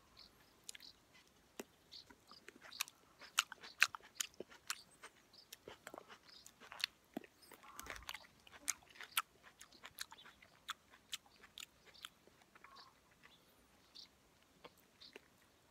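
Close-miked chewing of ripe plums: irregular wet mouth clicks and smacks, several a second, busiest in the middle and sparser near the end.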